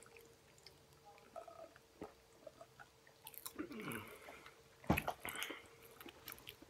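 Quiet chewing and mouth sounds with scattered small clicks, from a mouthful of sour Pop Rocks candy. A short voice-like sound falls in pitch about three and a half seconds in, and a sharp click comes near five seconds.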